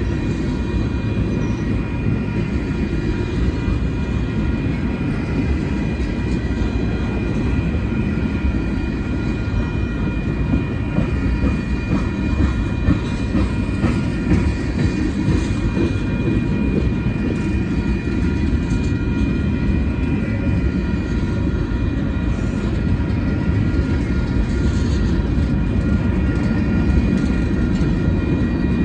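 Union Pacific freight train's tank cars and boxcars rolling past at close range: a steady low rumble of steel wheels on rail with a thin, steady high-pitched wheel squeal over it and occasional faint clacks.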